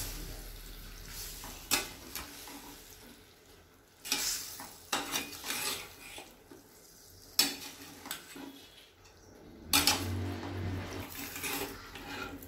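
Perforated stainless-steel spoon scraping and clanking against a steel pan as lemon pieces are stirred through hot pickle masala, in irregular strokes every second or two, over a light sizzle.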